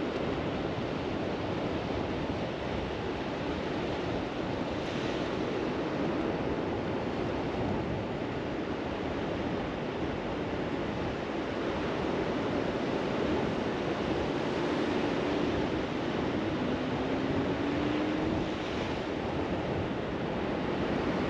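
Ocean surf breaking and washing up the beach, a steady rushing wash with wind on the microphone.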